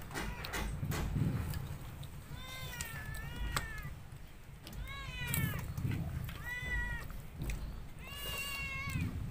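A cat meowing repeatedly, about five high, rising-and-falling meows each under a second long, with light clicks of utensils and plates in between.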